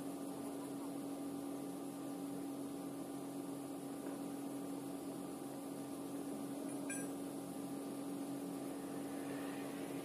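A machine running steadily with a constant low hum, and one faint click about seven seconds in.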